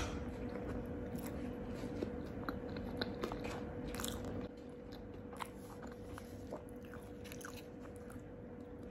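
Close-up mouth sounds of a person chewing a big bite of a McDonald's fish fillet burger: wet smacks and small crunchy clicks, busier in the first half, over a faint steady hum.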